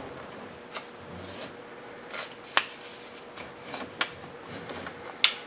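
A sheet of paper is slid and rubbed between a 3D printer's nozzle and bed, rustling and scraping, with about four sharp ticks spread through it. The paper is dragging hard under the nozzle while the nozzle-to-bed gap is set.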